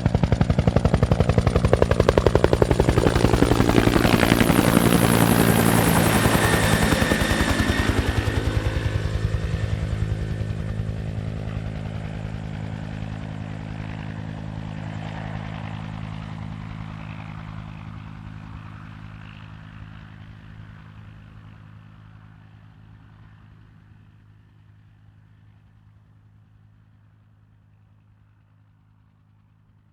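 Bell 212 helicopter, with its two-blade main rotor thudding, passing overhead. Its pitch drops as it goes by in the first several seconds, and it then flies away, fading steadily to near silence.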